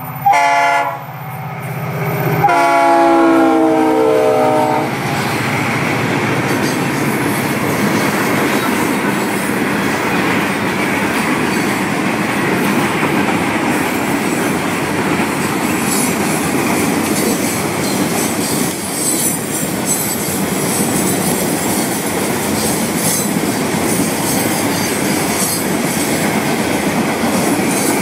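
Freight locomotive's air horn: one blast cutting off within the first second, then a second blast of about two seconds. After it comes the steady rumble and clatter of loaded open hopper cars rolling past on the rails, with scattered high clicks from the wheels.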